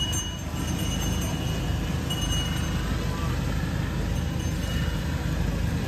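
Busy night-market ambience: a steady low rumble under faint crowd chatter. A thin, high tone comes and goes several times.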